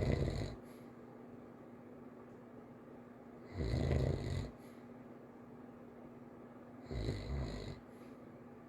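A sleeping child snoring lightly: three snoring breaths, each about a second long, roughly three and a half seconds apart.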